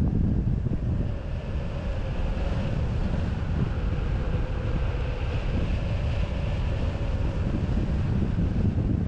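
Steady rushing wind noise from airflow buffeting a microphone on a hang glider in flight.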